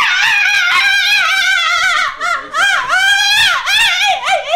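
A woman screaming and wailing in loud, high-pitched cries that rise and fall in pitch, broken by several short breaks.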